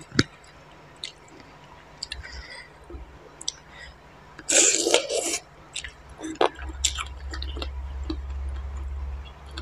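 Close-miked wet chewing and squishing of spicy papaya salad eaten by hand, with scattered mouth clicks and a louder burst of chewing noise about halfway through. A low steady hum comes in during the second half.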